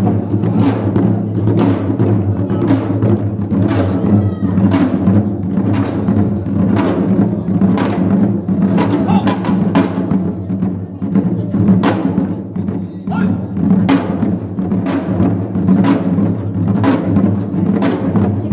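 Korean farmers' percussion music (nongak): drums and gongs played together in a steady beat of roughly two strikes a second, over a continuous ringing low tone.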